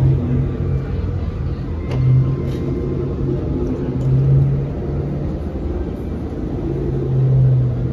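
A steady low mechanical hum that swells louder three times.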